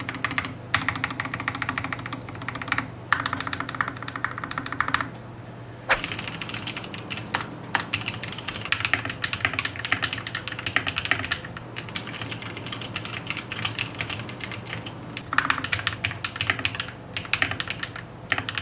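Typing on an RK61 mechanical keyboard modded with lubed Glorious Panda tactile switches, re-lubed stabilisers and plate and case foam: fast runs of keystrokes broken by short pauses, the longest about five seconds in.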